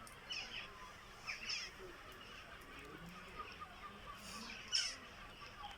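Birds calling: short, high calls that slide downward, coming in pairs near the start, about a second in, and near the end.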